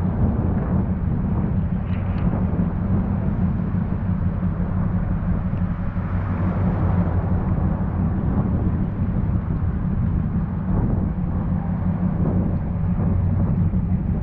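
Vehicle engine running steadily, a continuous low hum under a steady rushing noise.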